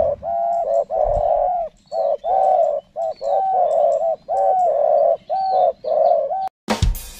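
Spotted dove (tekukur) cooing: a long run of low, closely repeated coo notes. About six and a half seconds in it cuts off abruptly and music starts.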